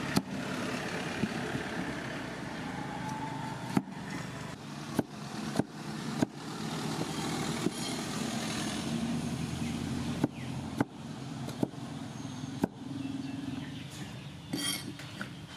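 Cleaver chopping through pumpkin onto a wooden cutting board: a dozen or so sharp knocks at irregular intervals over a steady background hiss.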